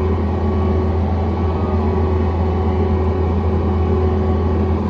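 John Deere 317 skid steer's diesel engine running steadily at an even speed, a constant low-pitched drone with no change in pitch.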